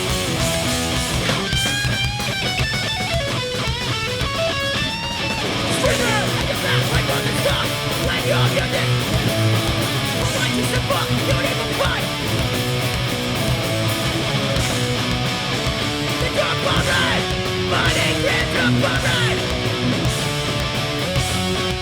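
Live hardcore punk band playing at full volume: distorted electric guitars over bass and drums. A run of high held guitar notes rings over the riff for a few seconds near the start.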